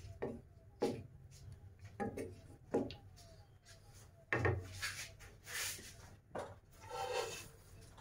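Spatula stirring chicken in its gravy in a cooking pan. There are about five sharp knocks against the pan in the first half, then longer scraping strokes.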